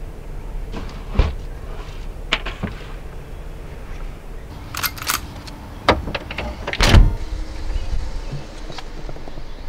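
Metallic clicks and clacks of a pump-action shotgun being handled, with a sharp double clack about five seconds in as the action is worked. A heavy thump follows about two seconds later, the loudest sound here.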